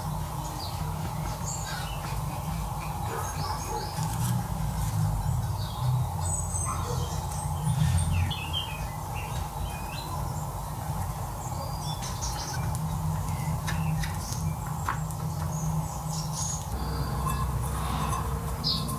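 Small birds chirping now and then over a steady low hum, with light taps and clicks of hands working at a table.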